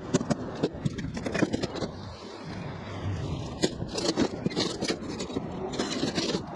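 Irregular knocks, clanks and scrapes of heavy scrap metal being handled and shifted.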